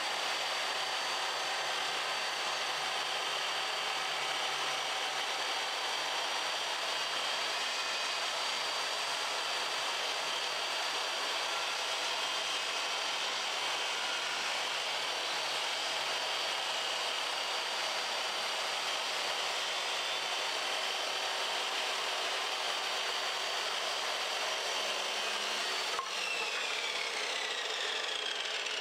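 Triton TA235CSL circular saw running and cutting through wood, a steady motor whine over the sawing noise. About 26 seconds in, the whine starts falling in pitch as the motor and blade spin down after the trigger is released.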